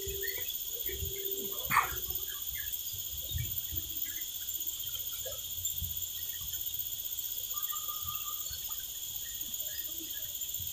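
Steady high-pitched insect chorus with scattered short bird chirps over it. There is a louder bird call about two seconds in and a short held whistle near the end.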